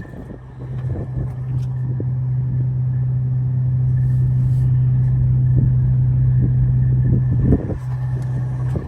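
Detroit Series 60 inline-six diesel of a Peterbilt dump truck running at a steady idle, a low, even drone. It grows louder over the first couple of seconds, then holds steady, with a short knock and brief dip near the end.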